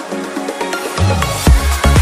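Electronic dance background music. The deep bass is missing at first, then comes back in about a second in with a steady kick-drum beat.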